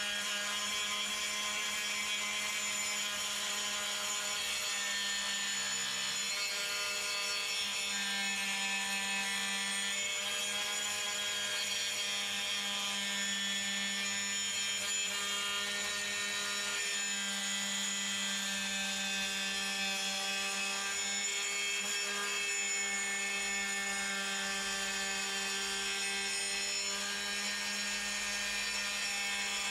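Rubi TC-125 diamond-blade tile saw running on its guide rail, cutting steadily through a large-format tile: a constant motor whine with the hiss of the blade in the tile, its pitch dipping slightly at times under load.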